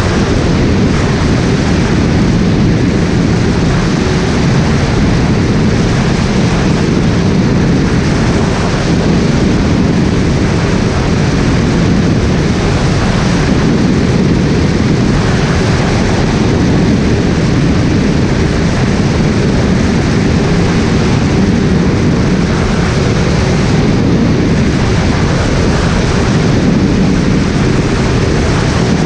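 Skyleader 500 light aircraft in flight, heard from on board: a loud, steady mix of engine and airflow noise.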